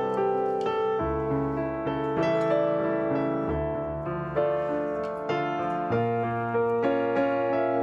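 Background piano music: a melody of changing notes over low bass notes that shift every couple of seconds.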